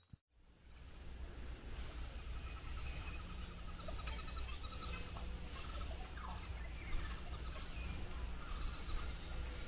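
Insects calling in a steady, continuous high-pitched trill, fading in just after the start and briefly dipping about six seconds in, over a low rumble.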